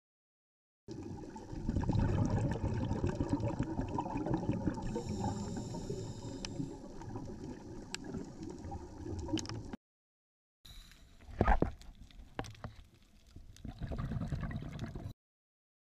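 Underwater camera audio of a scuba diver's exhaled regulator bubbles gurgling and rumbling. It comes in two stretches with abrupt cuts and a short dead gap between them, and the second stretch has one sharp, loud knock.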